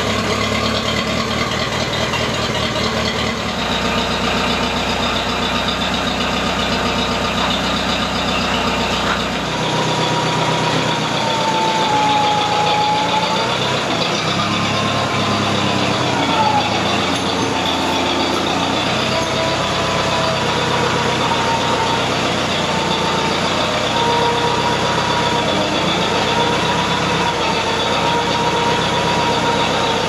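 Case 430 tractor engine running steadily in deep cold. Its note changes about ten seconds in, and a whine that dips and rises in pitch joins as the loader works.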